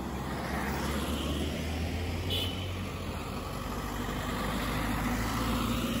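Motor vehicle engine and road noise: a steady low engine hum under a haze of road sound that grows a little louder toward the end.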